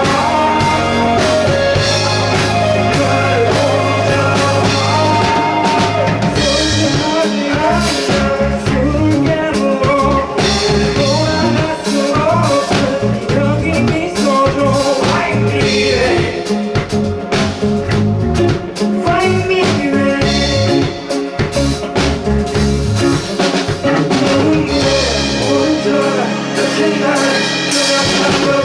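Indie rock band playing live: electric guitar, bass and drum kit with a singer, loud and steady through the passage.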